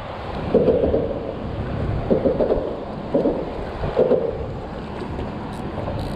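Wind buffeting the microphone aboard a small fishing boat, a steady rumble with louder gusts about half a second, two, three and four seconds in.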